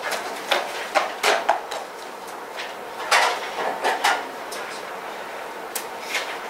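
Sheets of paper rustling and a series of sharp knocks and clatters as a tall wooden stool is picked up and handled.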